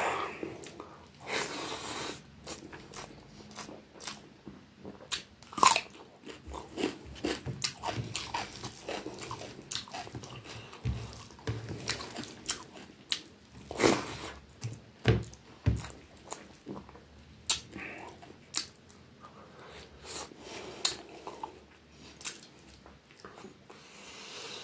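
Close-up eating sounds of a man chewing rice eaten by hand: irregular wet smacks and sharp mouth clicks, with the squish of fingers mixing rice on the plate.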